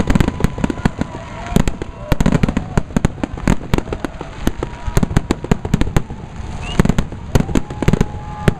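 Fireworks display: a rapid, irregular barrage of bangs and crackles with no let-up, with a few held whistling tones over it, one rising sharply late on.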